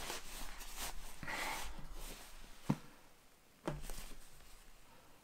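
Nylon shell fabric of a down quilt rustling as it is pressed and stuffed into a cardboard box, then two sharp knocks about a second apart.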